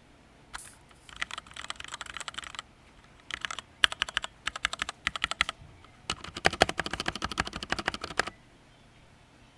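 Typing on a Tecware B68 65% mechanical keyboard with Gateron Black linear switches, in several bursts of keystrokes. The fastest, densest run comes in the second half, and the typing stops shortly before the end.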